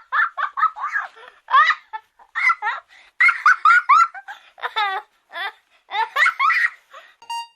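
Rapid, high-pitched laughing in quick runs of short gliding notes with brief pauses between them.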